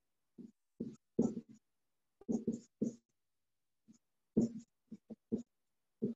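Marker pen squeaking and scratching on a whiteboard as words are written: a dozen or so short strokes with brief silent gaps between them.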